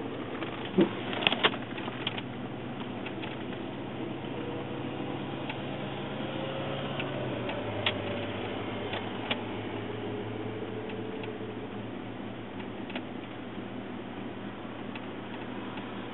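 Street traffic noise over a steady low hum, with a few sharp clicks about a second in and again around eight and nine seconds.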